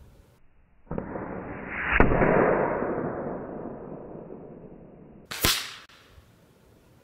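Spring-piston air rifle shots with .177 pellets. A swelling rush ends in a sharp crack about two seconds in as the pellet strikes and tips a small metal tin, then fades over a few seconds. A second short, sharp crack comes about five and a half seconds in.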